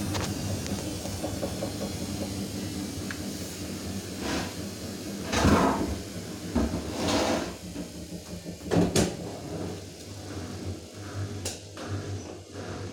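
Samsung P1271 washing machine running: a steady motor hum with several swishing surges as the drum turns the wash, the loudest surge about halfway through.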